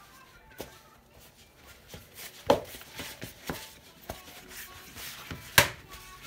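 Hands kneading soft yeast dough in a plastic bowl: irregular knocks and thumps of the dough being pressed and slapped against the bowl, the two loudest about two and a half and five and a half seconds in.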